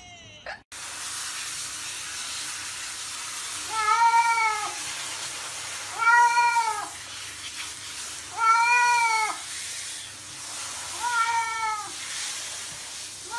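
Domestic cat meowing in protest while being showered: four drawn-out meows, each rising and falling in pitch, about two to three seconds apart, with a fifth starting at the very end. Under them runs the steady hiss of water spraying from a handheld shower head.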